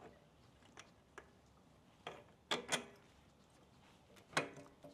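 About half a dozen light, scattered metallic clicks and clinks as the pivot bolt of an Aprilia Tuareg 660's rear suspension linkage is worked out of its bore by hand.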